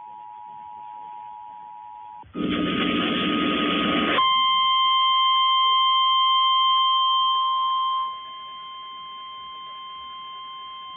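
Emergency Alert System two-tone attention signal, a steady dual tone that cuts off about two seconds in. A harsh burst of buzzing data noise about two seconds long follows. Then comes the single steady 1050 Hz NOAA Weather Radio warning alarm tone, which drops in level about eight seconds in and carries on.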